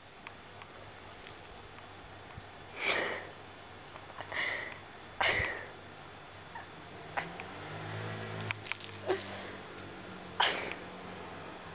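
Black-and-white kitten giving short, breathy huffs with its mouth open, four of them with gaps of one to five seconds, plus a few small clicks in between.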